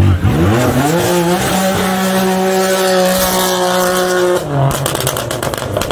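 Drag-race car engine at full throttle on launch: the revs climb steeply over about a second and a half, hold at one high pitch for about three seconds, then fall away. A string of rapid crackles follows near the end.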